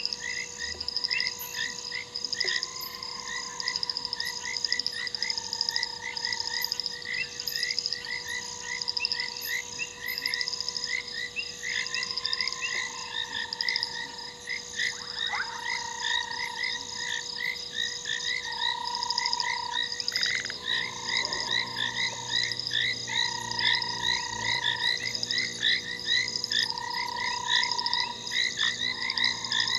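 Chorus of frogs calling: many short chirps overlapping, with longer held notes repeating every couple of seconds and a fast, high pulsing throughout.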